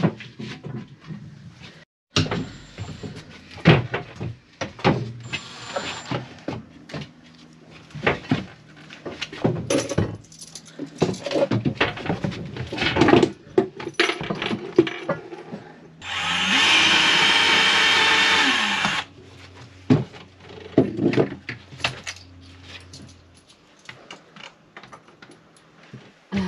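Knocks and clatter of tools and timber being handled. About two-thirds of the way through, a cordless drill runs for about three seconds, its motor spinning up and then winding down.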